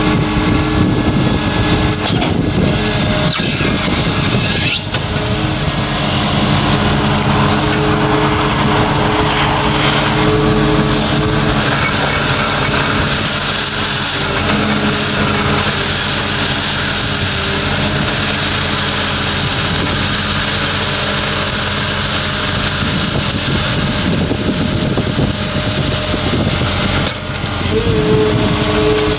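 Wheeled excavator's diesel engine running steadily under hydraulic load while an engcon SWD hydraulic rotating brush sweeps loose soil and gravel, a steady brushing hiss over the engine tones.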